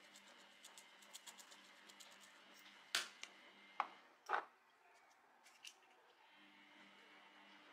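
Dry chilli flakes sprinkled onto raw chicken wings: a scatter of faint light ticks, then a few sharper clicks about three to four and a half seconds in.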